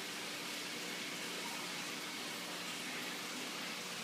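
Steady even hiss with a faint low hum underneath: room tone, with no distinct event.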